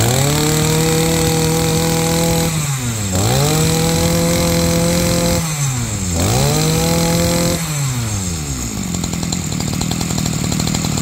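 Makita 20cc brush cutter engine revved hard three times, each burst held for about two seconds before the revs fall away, then settling back to a steady idle near the end. It has just been pull-started and runs smoothly, its throttle response crisp.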